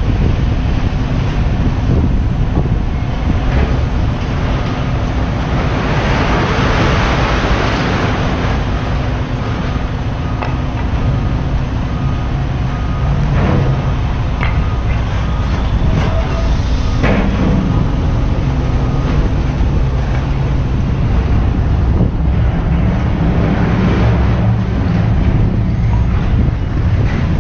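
Diesel semi-truck engine running low and steady as the tractor-trailer pulls slowly away, with wind on the microphone. A rushing hiss comes about six seconds in.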